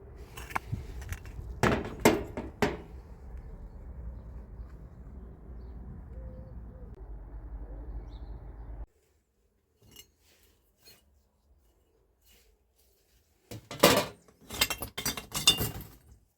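Hard metal parts clinking and knocking together as they are handled: a few sharp clicks early on, then a quick cluster of clinks near the end. A steady low hum underneath cuts off suddenly about nine seconds in.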